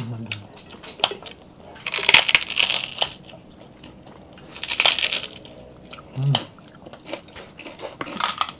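Crunching close to the microphone as crisp food is bitten and chewed, in two loud bursts of about a second each, around two and five seconds in, with scattered light clicks between.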